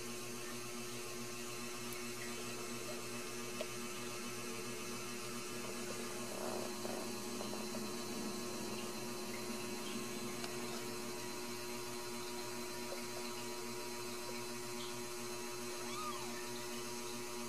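A steady electrical hum, with a few faint, short, rising-and-falling mews from newborn kittens near the end.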